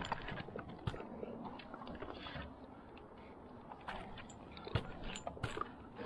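Climbing spurs biting into thick fir bark and a rope flipline scraping around the trunk as a climber works his way up. Irregular crunching knocks and scrapes, with a few sharper knocks about a second in and near five seconds.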